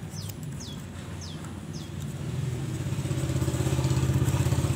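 A motorcycle engine running, steady and pulsing, growing louder from about two seconds in. A bird gives short falling chirps over the first two seconds.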